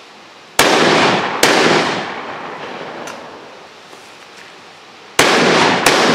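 Shots from a 12-gauge Stoeger Coach Gun side-by-side shotgun: two sharp reports about a second apart, then two more close together near the end, each trailing off in a long echo.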